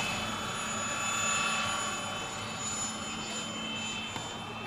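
Radio-controlled scale model of a Bell 47 helicopter in flight: steady rotor and drive sound with a high-pitched whine, swelling a little about a second in, then easing off.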